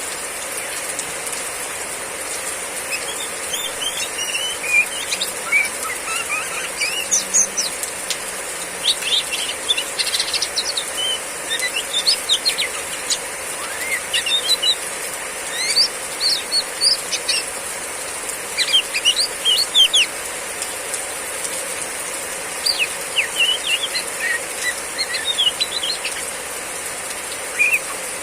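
Female oriental magpie-robin giving its chattering 'riwik' call: groups of quick, sharp chirps that come and go, over a steady hiss of heavy rain.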